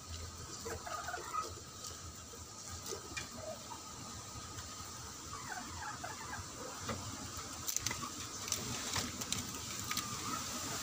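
Wood fire crackling in a native stove under a cooking pot, with scattered small pops and ticks that come more often in the second half. Faint high chirps sound now and then in the background.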